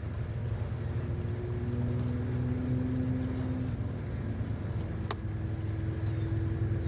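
Steady low rumble with the faint hum of a small boat motor, its pitch shifting slightly, and one sharp click about five seconds in.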